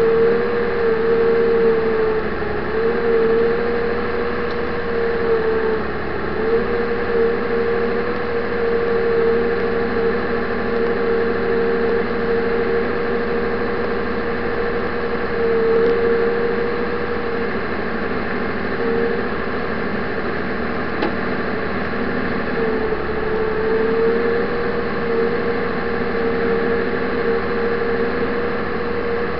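Engine and running gear of a Land Track tracked snow vehicle running steadily under load while ploughing through deep snow, heard from inside the cab, with a steady whine that sags slightly a few times.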